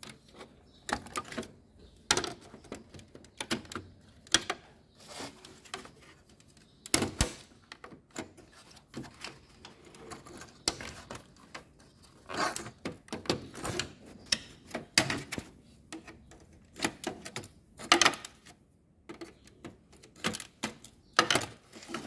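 Irregular plastic clicks and knocks as the locking tabs of a washing machine's plastic control-board housing are released and the board is handled, a few snaps louder than the rest.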